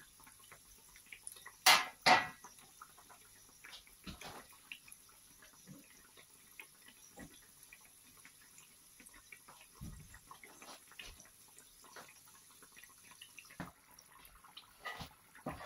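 Vegetable-filled pastries deep-frying in a pan of hot oil: a light crackle of small, irregular pops and spits. Two loud sharp clinks about two seconds in, from the metal fork knocking the pan.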